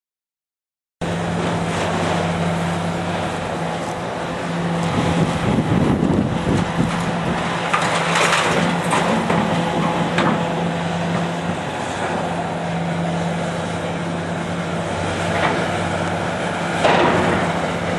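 A heavy demolition machine's engine running steadily, with loud intermittent crashes and scrapes of steel structure being torn away and dropped, the loudest about halfway through and near the end.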